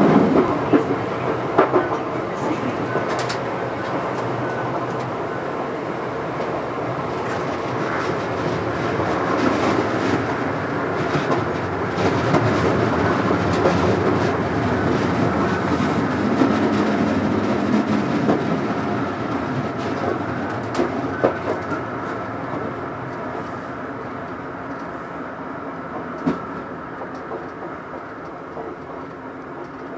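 Electric train running along the track, heard from inside the cab: steady wheel-on-rail rumble with scattered clicks over rail joints, growing quieter over the last several seconds as the train comes into a station.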